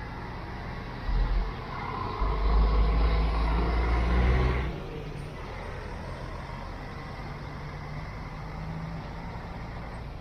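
Intercity coach's diesel engine passing close by with a deep rumble, loudest from about two to four and a half seconds in, then fading into a steady hum of bus engines further off.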